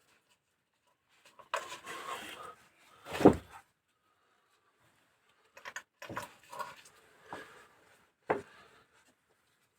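Clicks and knocks of metal engine parts being handled and set down, with one sharper knock about three seconds in, as hydraulic lifters are fitted into a cylinder head.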